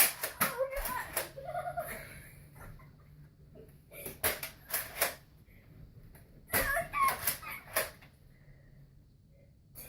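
Three bursts of quick, sharp clicks and knocks: one at the start, one about four seconds in and one around seven seconds in, with quiet between.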